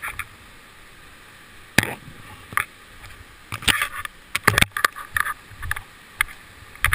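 Twigs and branches snapping and scraping close to the microphone as someone pushes through dense forest undergrowth, in irregular sharp cracks that come thicker from about halfway through, over a steady faint hiss.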